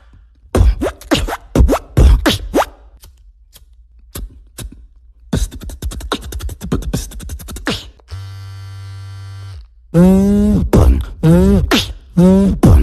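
Beatboxing: rapid mouth-made kick, snare and click sounds, then a steady buzzing bass tone held for about a second and a half, then a run of loud swooping bass notes that fall in pitch.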